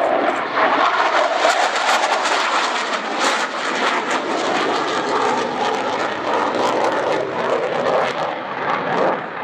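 Polish Air Force MiG-29's twin Klimov RD-33 turbofans: loud, steady jet noise from the fighter in its display flight, with a crackling edge through the first few seconds.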